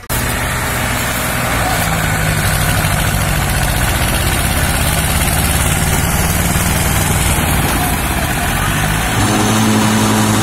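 Diesel engines of a Mahindra 265 DI and an Escort 335 tractor running under load as they try to pull a stuck trolley loaded with sugarcane. The engine note is steady, then rises as the engine is revved up about nine seconds in.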